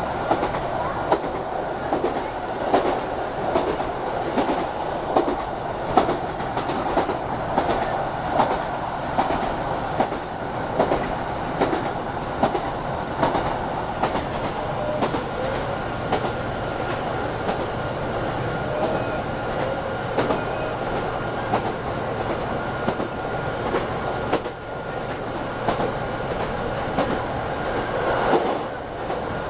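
Passenger train running along the track, heard from inside the carriage: a steady rumble of wheels on rail with frequent sharp clicks over rail joints and a faint steady whine.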